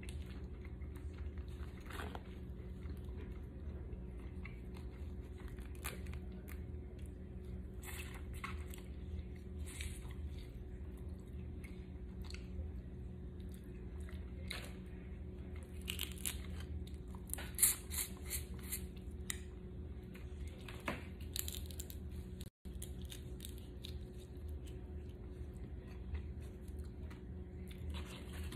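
Boiled crawfish being cracked and peeled by gloved hands, with chewing: scattered short snaps and crunches of shell, busiest a little past halfway, over a steady low hum.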